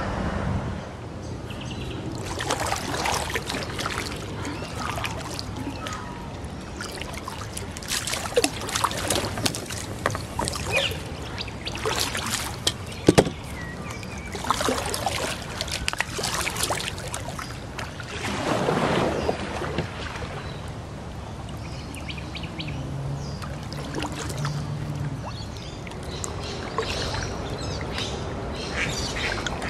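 Kayak paddle strokes splashing and dripping in the water in bursts every few seconds, with one sharp knock about halfway through.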